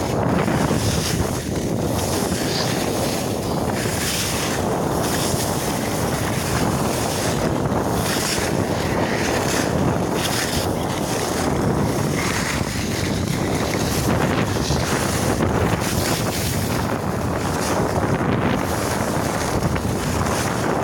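Wind rushing over a handheld phone's microphone during a downhill ski run, with the hiss of skis carving the snow swelling and fading every second or two as the skier turns.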